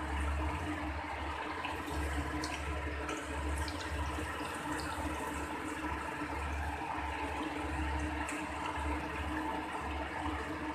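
Battered chicken pieces deep-frying in hot oil in a kadai during their second fry, a steady sizzle. A few light clicks come through as a wire spider strainer lifts the pieces out of the oil.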